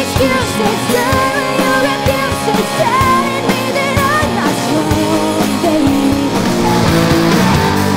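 Live rock band playing, with a woman singing lead over electric guitar, bass guitar and drums.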